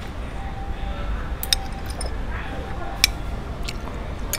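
Metal spoon and fork clinking against a ceramic plate while eating: a quick pair of clinks about a second and a half in and a single clink about three seconds in, over a steady low background rumble.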